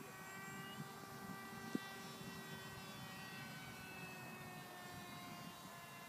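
Faint, steady whine of a distant electric R/C model airplane's brushless outrunner motor (EMax CF2822) and 10x4.7 propeller in flight, slowly dropping in pitch. A single short knock comes just under two seconds in.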